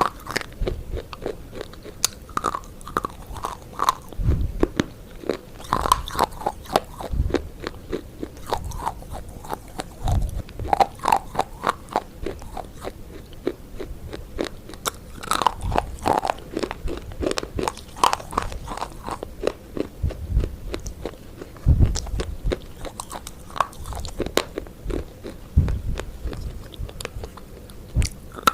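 Close-miked chewing and biting of crunchy food: dense, irregular crunching clicks with low thuds every second or two.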